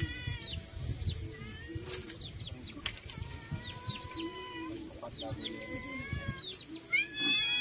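Animal calls repeated throughout: quick high downward chirps mixed with longer held calls.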